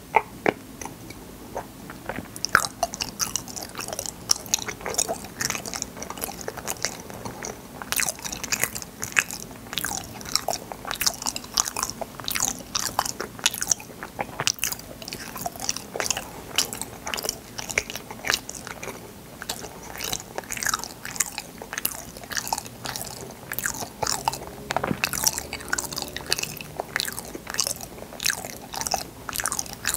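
Close-miked chewing of fruit yanggaeng, bite-sized balls of sweet bean jelly: a dense run of wet, sticky mouth clicks and smacks, a little sparser in the first couple of seconds.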